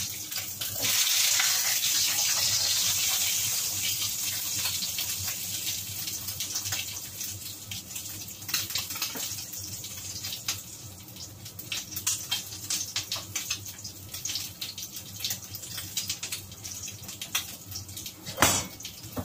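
Pork cheek frying in hot oil in a wok: a loud sizzle that surges about a second in, then settles into quieter sizzling with scattered crackles and pops. One sharp knock near the end.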